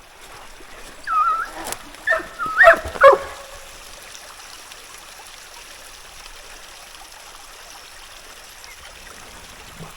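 A dog whining and yipping in a few short, high calls in the first three seconds, then a steady faint trickle of creek water.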